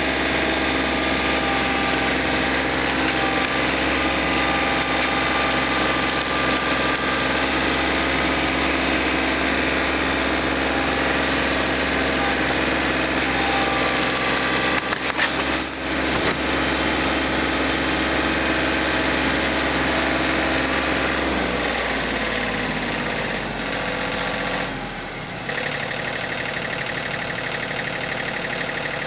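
Tractor engine running steadily under load while a strap pulls a notched silver maple over. A few sharp cracks about halfway through, as the trunk gives way. Near the end the engine settles to a lower, quieter note.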